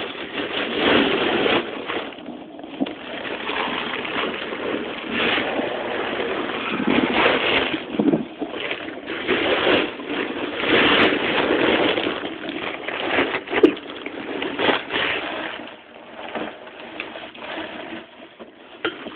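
Irregular rustling and scraping from a person crawling through a crawlspace under a floor with a handheld phone, with the phone rubbing against clothing and surfaces. A couple of sharp clicks come about eleven and thirteen seconds in.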